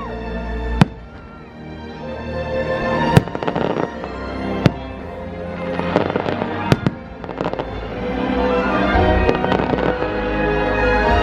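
Fireworks going off: several sharp single bangs and crackles at uneven intervals, over an orchestral show soundtrack on loudspeakers that swells louder near the end.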